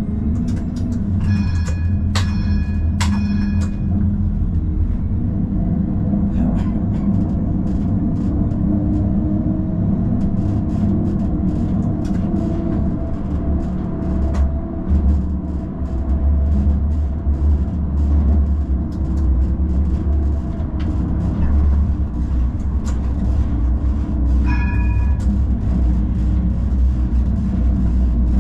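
Tram running along the rails with a steady low rumble and light clicking from the track. A ringing, bell-like tone sounds three times in quick succession in the first few seconds, and once more near the end.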